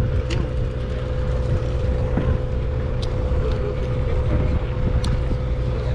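A party fishing boat's engine running: a steady low rumble with a constant hum above it. Three faint sharp clicks come through, about a third of a second, three seconds and five seconds in.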